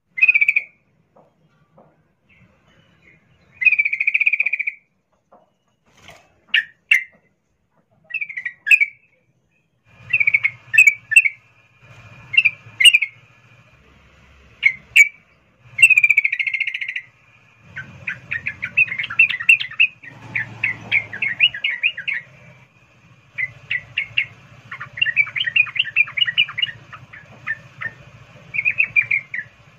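Female yellow-vented bulbul (trucukan) calling: short bubbly chirping phrases with pauses, then from about 18 s a fast, almost unbroken run of chattering notes, the long continuous 'ngerol' call.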